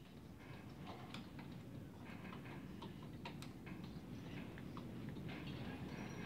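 Faint, irregular small metal clicks and taps: tools being handled and fitted around a hammer drill held in a bench vise, with washers on the stuck bit and a pickle fork being set behind the chuck's collet.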